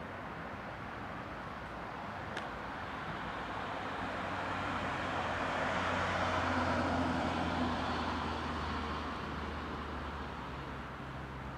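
A car driving past on a road. Its engine and tyre noise swells to a peak about halfway through and fades away again.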